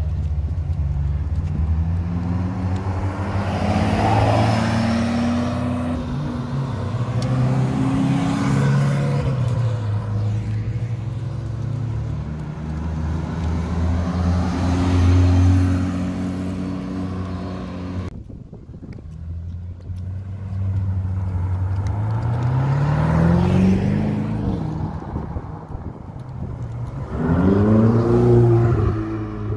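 Ferrari engines revving as the cars pull away. First a Ferrari Testarossa's flat-twelve revs up several times and accelerates past. After a break, a Ferrari 488's twin-turbo V8 revs up once, then blips several times in quick succession near the end.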